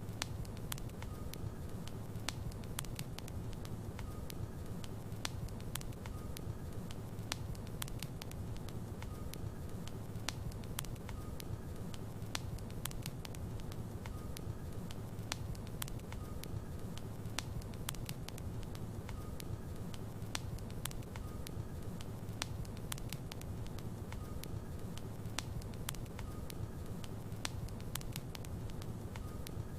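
Logs burning in a fireplace: a steady low rumble of the fire with frequent irregular sharp crackles and pops.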